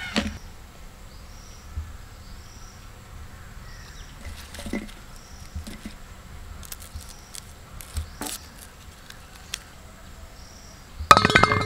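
Shallots being peeled by hand, with scattered small clicks and crackles of the papery skins, over an insect chirping about once a second. Near the end, peeled shallots are dropped into a stainless-steel bowl with a loud metallic clatter and clink.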